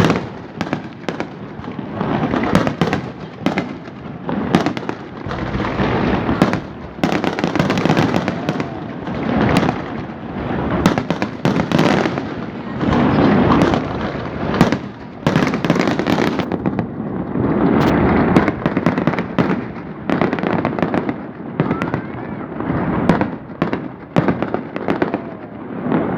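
Fireworks display: a continuous barrage of aerial shells bursting, many sharp cracks and bangs over a dense, rolling rumble of overlapping explosions that swells and eases every few seconds.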